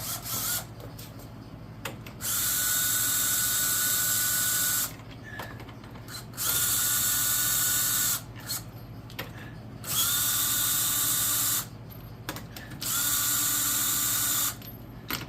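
A power tool run in four bursts of about two seconds each, a steady whine each time, spinning the lug nuts off a truck wheel.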